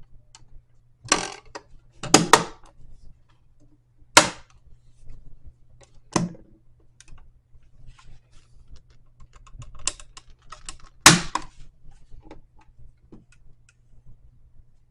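Plastic outlet cover plate being handled and snapped onto a GFCI receptacle: a series of sharp plastic clicks and snaps, with lighter ticking between them.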